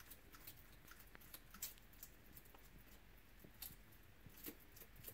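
Faint, irregular crunching clicks of a bearded dragon chewing a large dubia roach.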